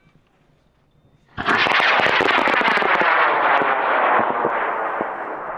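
A high-power rocket motor starts up suddenly about a second and a half in: a loud roar full of rapid crackling. It fades slowly as the rocket climbs away.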